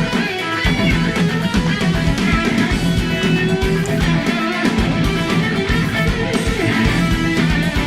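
Loud guitar-driven rock music with a steady drum beat.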